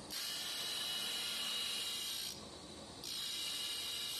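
A thin abrasive disc grinds into a steel vise jaw in two passes, one of about two seconds and then a shorter one, each a harsh high hiss. Between the passes the spindle keeps running with a quieter steady whine.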